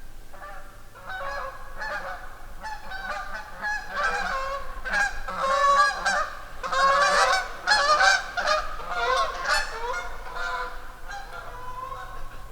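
A flock of geese honking, many short calls overlapping, growing louder toward the middle and then fading as they pass.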